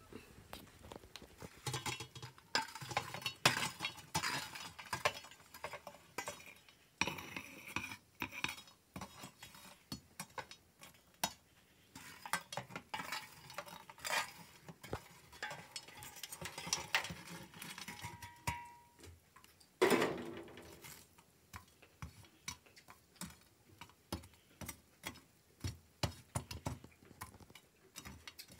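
Metal scoop and tongs clinking and scraping on an aluminium pot lid as glowing charcoal embers are tipped onto it and spread around, the coals clattering on the metal. This puts heat on top of the pot to steam the rice. One louder knock comes about twenty seconds in.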